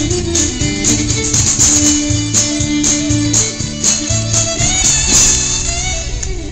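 Fiddle playing a lively shuffle tune over a strummed guitar backing with a steady beat, ending on a held final chord about five seconds in.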